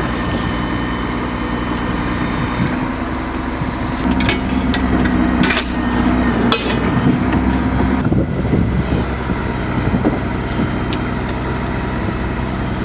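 Heavy diesel engine of a timber truck running under load, its engine note changing about four seconds in and again about eight seconds in, with a few knocks over it.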